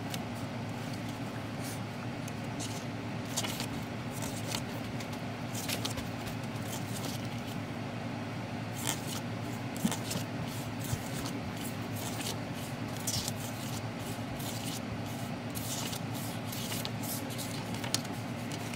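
Pages of a K-pop album photobook being turned and handled: scattered soft paper rustles and light taps over a steady low background hum.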